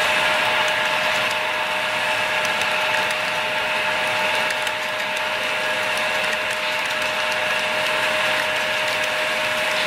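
HO scale model freight cars rolling past on the track: a steady rolling rattle of small metal wheels on rail, with scattered faint clicks and a steady high whine.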